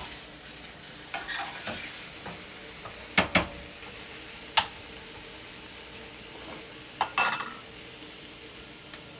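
Mushrooms and onions sizzling in a frying pan, with a few sharp clacks of a utensil against the pan as they are stirred, twice close together about three seconds in, once more near five seconds, and a short clatter about seven seconds in.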